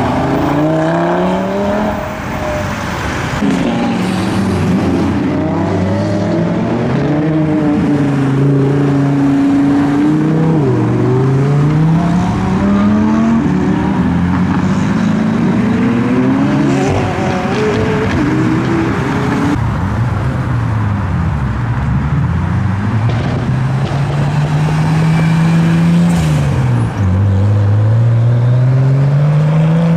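Several modified cars pulling away one after another, their exhaust notes climbing in pitch through the gears and dropping back at each change, overlapping as one car follows another.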